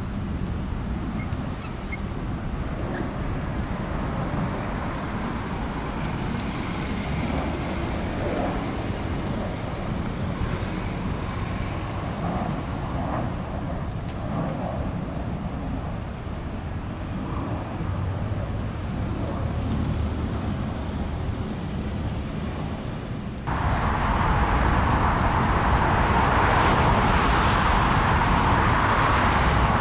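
Jet airliner noise at an airport: a steady rumble and hiss, with wind on the microphone. About three-quarters of the way through, the sound jumps abruptly to a louder, harsher hiss, as if cut to a closer jet.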